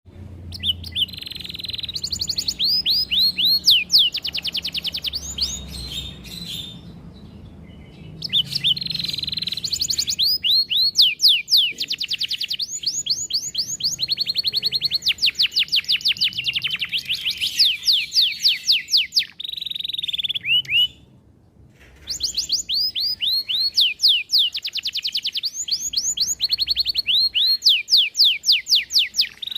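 Domestic canary singing long rolling phrases: fast trills of repeated sweeping notes, broken by two short pauses.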